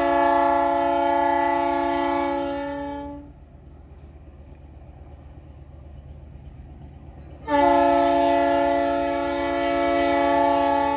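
Air horn of an approaching G22U diesel locomotive sounding two long blasts, each about four seconds, a chord of several steady notes, with a pause of about four seconds between them. A steady low rumble runs underneath.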